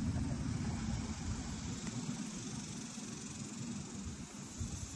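Outdoor background noise: a low, uneven rumble that is strongest at the start and fades, over a faint steady hiss.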